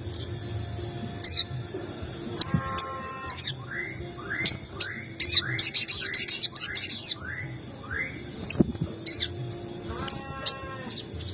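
Sogon birds chirping and calling: short high chirps throughout, with a quick run of about eight repeated sweeping notes in the middle, and a short call with a buzzy, stacked tone about three seconds in and again near the end.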